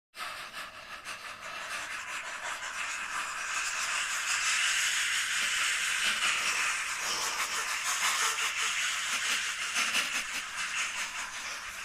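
Steady hissing noise that swells over the first few seconds, then holds.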